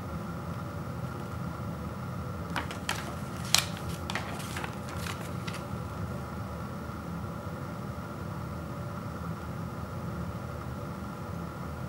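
Paper instruction leaflet crackling as it is handled and turned over, a quick cluster of sharp crinkles in the first half, over a steady background hum.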